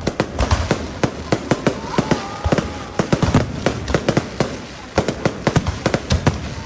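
Fireworks going off: a rapid, irregular string of sharp bangs and crackles, several a second, with no let-up.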